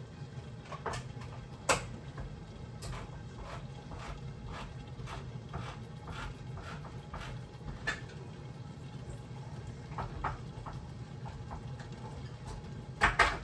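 Cooking utensils clicking and knocking against a pot while ingredients are added and stirred. There is a louder knock about two seconds in and a loud double knock near the end, over a steady low hum.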